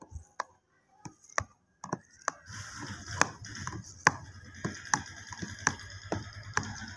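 Kitchen knife slicing through set jelly in a plastic box, its blade tapping against the box's bottom in about a dozen sharp, uneven clicks. A steady background hum comes in about a third of the way through.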